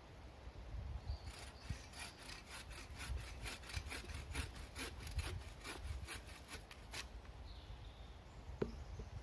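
Small bow saw cutting through a branch, with quick, even strokes, about four a second, that start about a second in and stop at about seven seconds. A single sharp click comes near the end.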